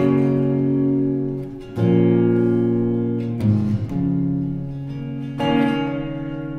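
Background music: an acoustic guitar strikes four chords and lets each ring, one about every two seconds.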